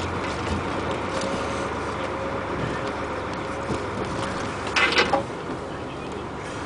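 Truck driving along a gravel forest road, its engine and tyres making a steady rumble, with a short loud burst of noise about five seconds in.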